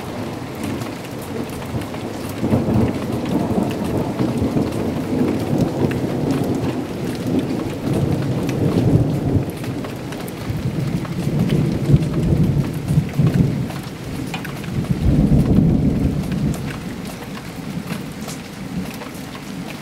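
Steady heavy rain falling, with fine patters of drops throughout, and thunder rumbling in low rolls that swell several times, the strongest about three quarters of the way in.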